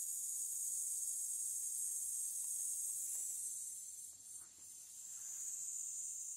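Insects shrilling outdoors: a steady, high-pitched drone, with a few faint light clicks in the middle.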